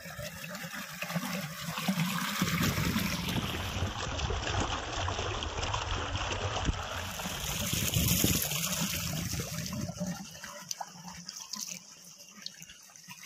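Irrigation water gushing up out of a buried pipe outlet and splashing into an earthen field channel. It is louder from about two seconds in and fainter over the last few seconds.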